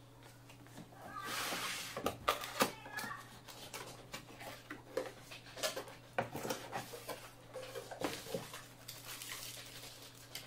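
White cardboard box being opened and handled: the lid and flaps scrape and squeak, with a string of taps and knocks, the sharpest a couple of seconds in. Near the end, the plastic bag around the parts rustles.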